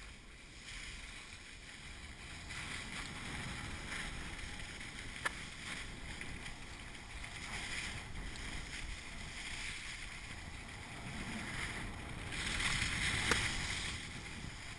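Skis scraping and hissing over packed snow as the skier carries the camera down the halfpipe, with some wind on the microphone. The scraping swells louder near the end, and there is one sharp click about five seconds in.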